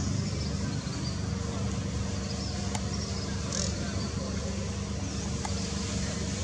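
Steady low outdoor background rumble with a faint hum, like distant engine or traffic noise, broken by two faint clicks a few seconds apart.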